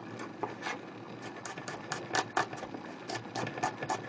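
Kitchen knife chopping garlic on a plastic cutting board: sharp knife taps, a few scattered at first, then a steady run of about four a second from about a second in.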